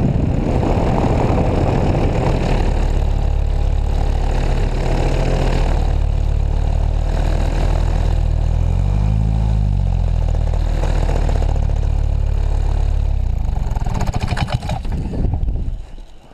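Paramotor engine and propeller running steadily in flight, with wind rushing over the microphone. About nine seconds in the engine briefly revs up and back down, and near the end it is throttled off and the sound drops away.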